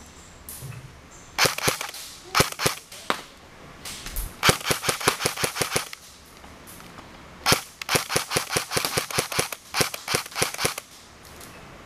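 Airsoft guns firing in several rapid bursts of sharp cracks, about eight to ten shots a second, the longest bursts near the middle and in the second half.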